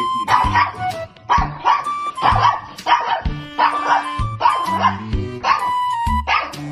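A small dog barking, over background music.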